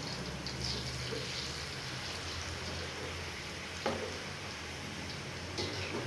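Wonton skins deep-frying in hot oil, a steady crackling sizzle, with a single sharp knock about four seconds in.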